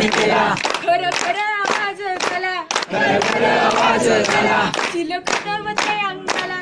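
Young women's voices singing a Marathi powada (heroic ballad) together in a loud, declamatory chant, with hand claps keeping time.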